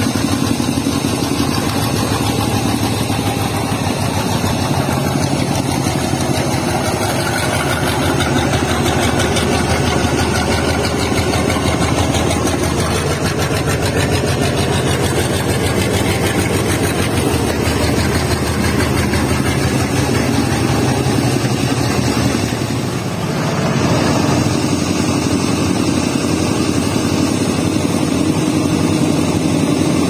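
A logging truck's diesel engine running steadily close by. It dips briefly about three-quarters of the way through, then settles at a slightly higher note.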